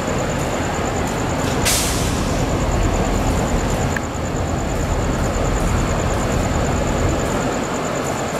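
Diesel locomotive rumbling steadily out of view, with a sudden sharp hiss of air from its brakes about two seconds in.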